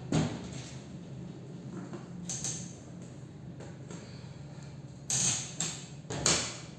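Equipment being handled: a handful of sharp knocks and clatters, the loudest right at the start and in a cluster near the end, over a steady low electrical hum from the powered-up mixer and amplifier.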